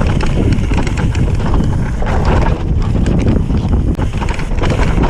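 Mountain bike descending rocky singletrack: tyres rolling over loose stones and the bike rattling with frequent knocks, under heavy wind buffeting on the camera microphone.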